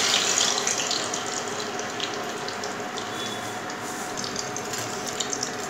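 Beaten egg poured into hot oil in a kadai, sizzling loudest at first and easing over the first couple of seconds into a steady, softer sizzle with scattered crackles.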